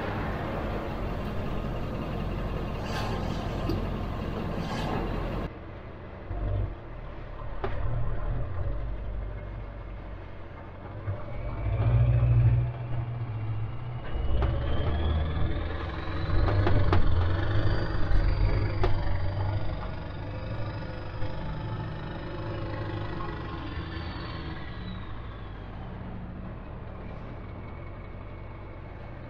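Diesel Ford F-350 pickup towing a loaded trailer, its engine running louder as it pulls away and picks up speed. A high whine climbs in pitch as it accelerates and falls again as it eases off.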